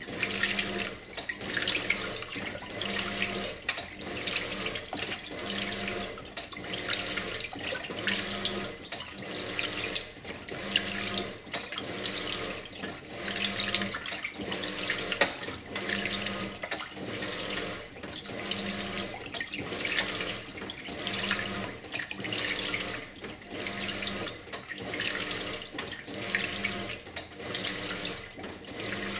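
2001 Simpson Esprit 550 washing machine agitating a full load of clothes in water during the wash. The motor hum swells and fades in a steady rhythm of about three strokes every four seconds, over constant water sloshing.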